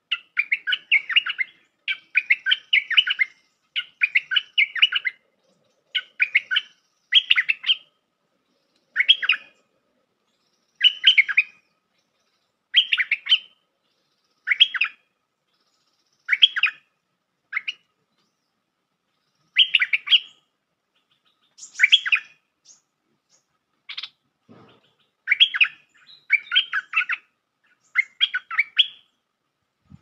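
Bulbul (merbah lekir) singing a short, bubbly phrase over and over, about one every one to two seconds, the lure song used to draw wild bulbuls to a trap.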